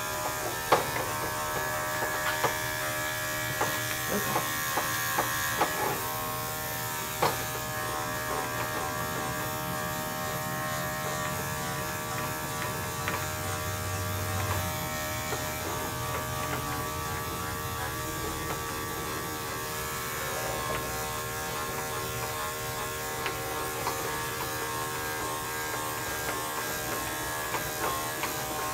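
Electric dog-grooming clippers running steadily with a buzzing hum as a matted coat is shaved down. Several sharp light clicks come in the first few seconds.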